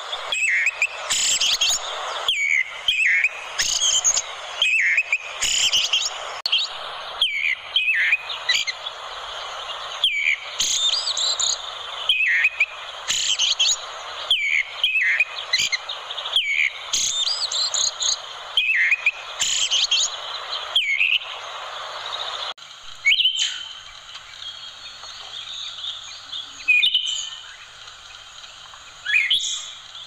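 Orange-headed thrush singing: loud phrases of quick whistles and downward slurs, one every second or two, growing sparser near the end.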